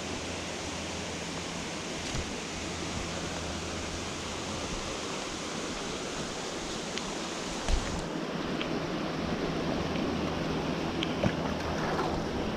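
Creek water rushing steadily, with a couple of brief knocks, the clearest about two thirds of the way in.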